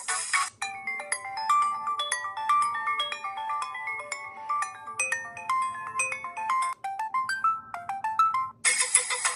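HTC phone ringtones playing in turn. A dense, buzzy electronic tone cuts off just after the start. A quick tune of short, bright, separate notes follows, stepping up and down in pitch. Near the end another dense, buzzy ringtone begins.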